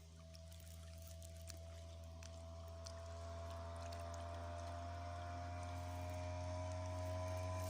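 SEA PRO 5 hp outboard motor running steadily, its hum growing gradually louder, with water splashing and trickling around the boat.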